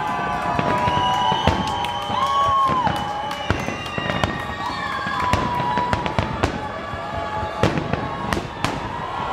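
Fireworks display: many aerial shells bursting in quick, irregular succession, with held, wavering high tones running under the bangs.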